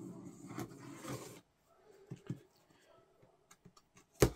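A knife slitting the packing tape along the lid seam of a cardboard box, a rasping drag for about the first second and a half, then faint scrapes and clicks. A sharp knock near the end.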